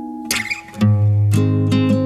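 Background music on acoustic guitar: a held chord breaks off, a new chord starts just under a second in, and steady strumming follows at about three strokes a second.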